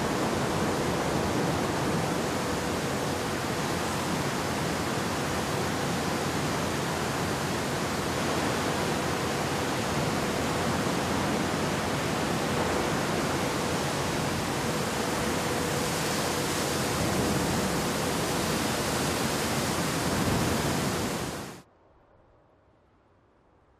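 Steady rushing noise with a faint steady tone under it, cutting off suddenly near the end.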